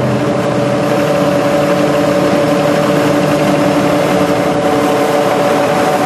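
John Deere 9610 combine running steadily while harvesting wheat: a constant machine drone with a steady, even hum.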